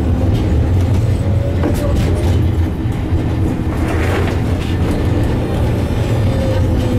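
Tram running along the street heard from inside the car: a steady low rumble of the wheels on the rails and the running gear. A faint whine slowly falls in pitch in the second half, with a few light clicks.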